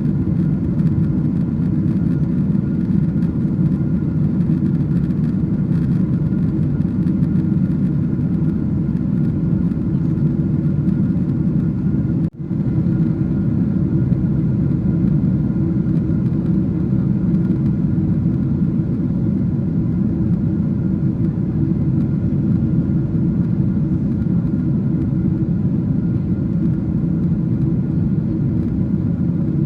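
Steady cabin drone of a Boeing 777-300 in cruise: engine and airflow noise heard from inside the passenger cabin. It cuts out for an instant about twelve seconds in.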